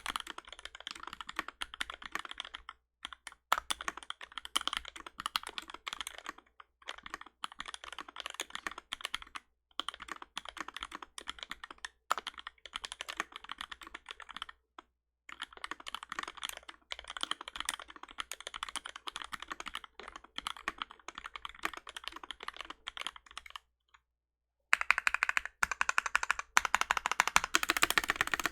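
Fast typing on a mechanical keyboard with lubed and filmed Seal switches and GMK keycaps: quick runs of keystrokes broken by short pauses. There is a pause about four-fifths of the way in, then the typing comes back louder and denser.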